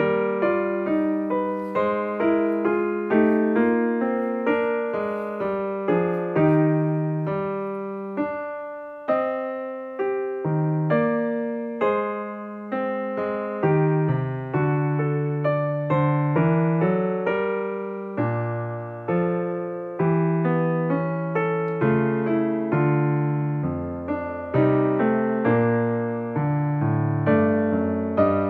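Solo piano music, a gentle classical-style piece with a steady flow of notes and chords.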